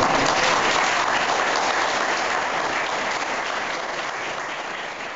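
Audience applauding, the clapping starting all at once and then gradually fading.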